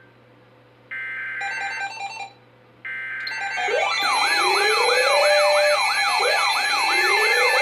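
Emergency Alert System header data tones: two short bursts of screeching paired tones separated by pauses. From about four seconds in, a loud alert alarm sounds, with a fast repeating siren-like wail over steady tones and slower rising whoops.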